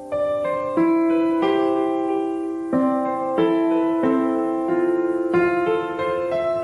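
Background piano music: a slow, gentle melody, a new note or chord struck about every two-thirds of a second and left to ring.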